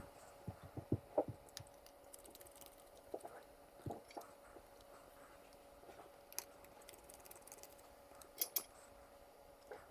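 Faint small clicks and taps of a precision screwdriver and tiny Phillips screws being worked into the Nintendo Switch's metal shield, several in the first second and a half, a few more around three to four seconds in and a pair near the end, over a faint steady hum.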